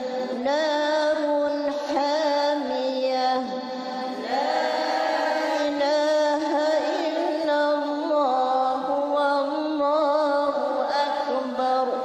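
Women chanting the Quran in the melodic tarannum style: long held notes with ornamented turns, phrase after phrase, with short breaths between phrases about four and eight seconds in.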